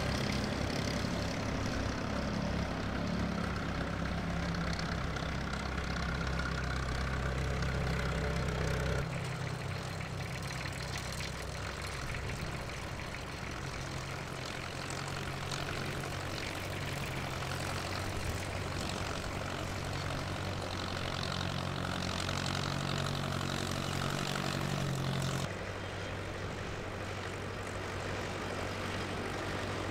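Vintage tractor engines running, a steady low drone that shifts abruptly about nine seconds in and again near the end.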